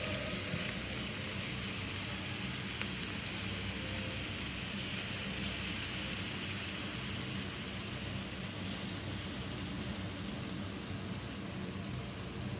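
Vegetables sizzling steadily in a hot oiled pan as they stir-fry.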